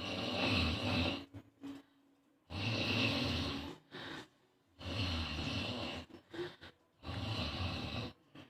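A person making four long, noisy breaths, one about every two and a half seconds, like snoring.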